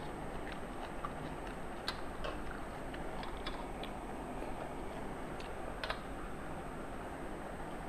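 Eating sounds: scattered small clicks and smacks from chewing and from fingers mixing rice on metal plates, with the sharpest clicks about two seconds and six seconds in, over a steady background hiss.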